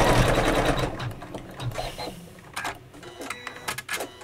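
Computerised embroidery machine stitching a placement line at a fast, steady pace, stopping about a second in as the placement outline finishes. After that come a few light clicks and rustles of the hoop and fabric being handled.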